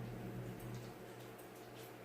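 Faint chewing with a few soft mouth clicks, over a steady low electrical hum.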